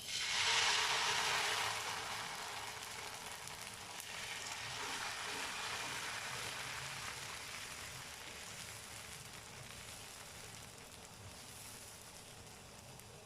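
Pearl millet dosa batter sizzling on a hot greased dosa pan. The sizzle starts sharply, is strongest in the first two seconds, swells again about four seconds in, then slowly fades.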